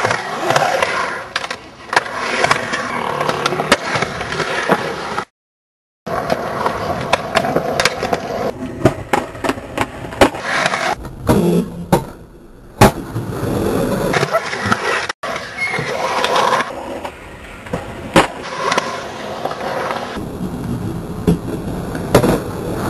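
Skateboard wheels rolling and carving on smooth concrete bowl walls, broken by sharp clacks and slaps as the board lands and strikes the concrete. The sound cuts out completely for under a second about five seconds in.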